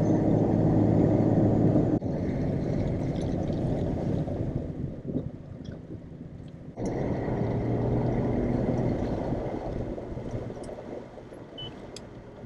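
Toyota Tacoma pickup driving, its engine running at a steady low hum with road noise. The level drops suddenly about two seconds in, jumps back up near seven seconds, then fades toward the end.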